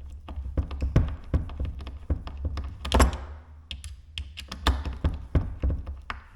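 Screws being driven by hand into a Blum cabinet hinge: a run of small irregular clicks and taps from the screwdriver and hinge, with one louder knock about three seconds in. The screws are only being seated snug, not driven tight.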